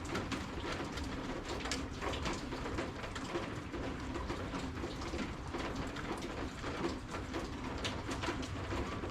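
Rain pattering and dripping, with many sharp single drop ticks, over a low bird call that sounds like a dove cooing.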